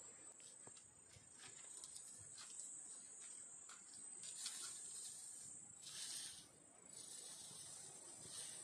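Faint, steady high-pitched insect drone, with scattered soft ticks and scraping hiss as a hand works through ash.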